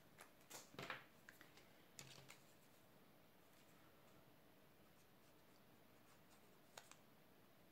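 Near silence, with a few faint rustles and taps of cardstock being handled in the first couple of seconds and two faint ticks near the end.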